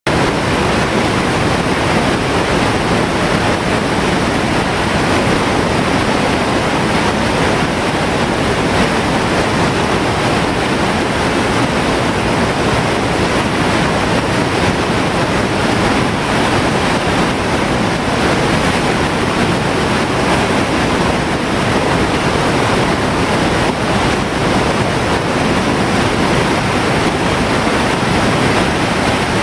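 Whitewater rapid and waterfall rushing steadily over granite boulders, a loud continuous rush of water.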